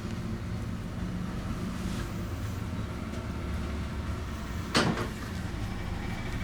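Steady low rumble with one short, sharp smack about five seconds in.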